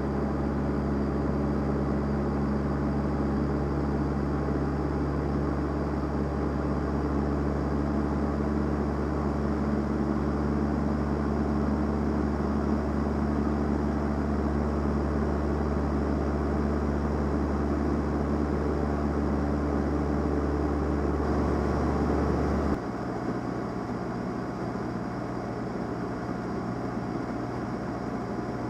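Steady drone of a Van's RV-7A's piston engine and propeller heard inside the cockpit. About 23 seconds in the sound changes abruptly to a quieter, different note.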